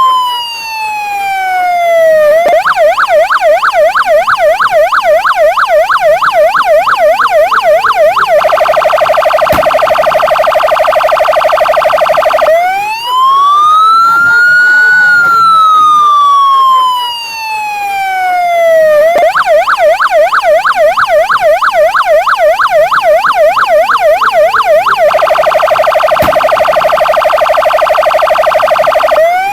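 Santa Fe police patrol car siren cycling through its tones. A slow wail falls, then comes a fast warbling yelp for about six seconds, then a very rapid trill for about four seconds. The cycle repeats: the wail rises and falls again, then the yelp and trill, and the wail starts rising once more near the end.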